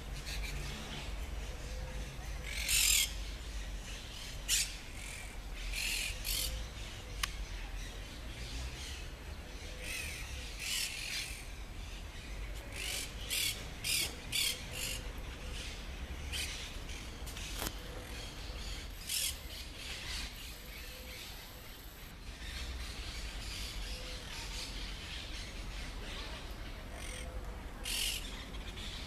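Birds calling outdoors: short, high calls scattered throughout, several in quick succession around the middle, over a steady low rumble.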